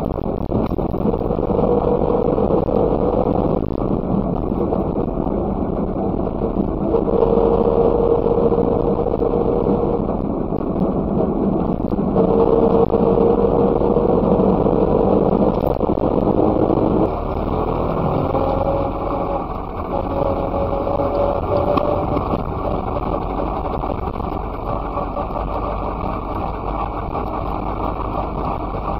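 Messerschmitt KR200's single-cylinder two-stroke engine running on the move, heard on board; its pitch climbs and then drops back several times, with steady road and wind noise underneath.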